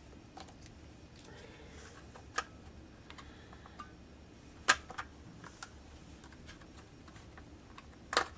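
Small hard objects and tools handled on a work surface: scattered sharp clicks and taps. The loudest come about halfway through and just before the end.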